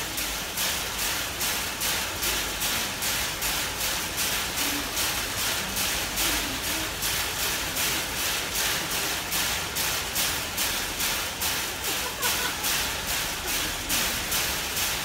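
A chimpanzee striking the steel bars of its cage over and over in an even rhythm, about three rattling strokes a second. It is a stereotypic repetitive behaviour of a caged animal, which the uploader takes for zoochosis.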